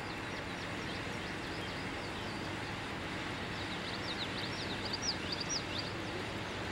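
Small birds chirping over a steady outdoor background noise, with the chirps coming in a quick run a little past the middle.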